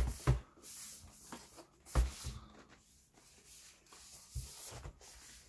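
A cardboard product box being handled and turned over by hand: fingers rubbing and sliding on the card, with several short soft knocks, the loudest at the start and about two seconds in.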